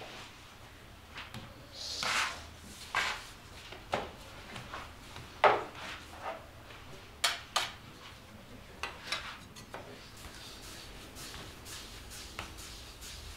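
Dough being cut and portioned by hand on a bakery work table: irregular knocks and a few short scrapes, the loudest about five and a half seconds in, thinning out in the last few seconds.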